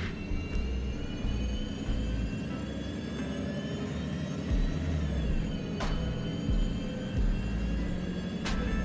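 City bus riding, heard from inside the cabin: a low engine rumble under a steady high whine that drifts slightly in pitch, with two sharp knocks, one about six seconds in and one near the end.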